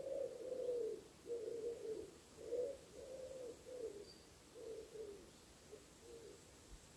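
Pigeon cooing: a run of low, rounded coos, one after another, growing fainter and dying away near the end.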